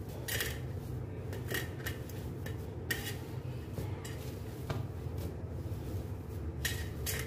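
Hands kneading and pressing mashed potato stuffing in a steel plate, with light, irregular clinks of the metal plate as it is worked.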